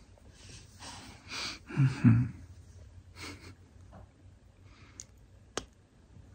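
Greyhound's breathy snorts through the nose, with two short low grunts about two seconds in, the loudest moment; a single sharp click near the end.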